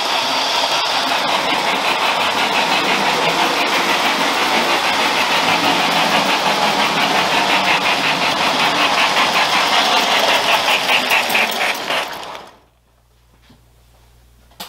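Lionel O-gauge model train running on three-rail track: the loud, steady rumble and rattle of the freight cars and locomotive, with a regular rhythmic pulse. About twelve and a half seconds in, the sound cuts off sharply as the train comes to a stop.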